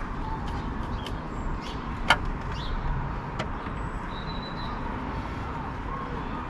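Steady background hum of road traffic with a single sharp click about two seconds in and a few fainter ticks, from a screw being driven into the plastic steering column cowling of a Mk5 VW Golf.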